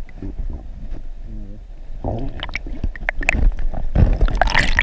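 Water gurgling and sloshing heard through a camera held just below the surface, with many sharp splashes and knocks. The splashing grows louder and busier from about two seconds in.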